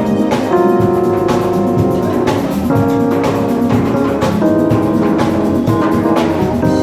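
Band music: held keyboard or organ chords that change every second or so, over a drum kit keeping a steady beat.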